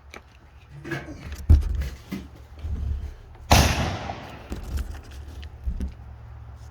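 A single loud gunshot about three and a half seconds in, with a short ringing echo. Before it come a heavy thump and several knocks, with a low rumble of wind on the microphone throughout.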